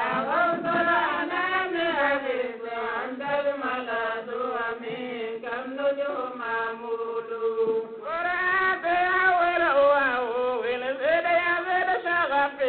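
Chanting of an Arabic devotional poem in praise of the Prophet Muhammad, the voice drawn out in long melismatic phrases without drums. A note is held about six to eight seconds in before a new phrase begins.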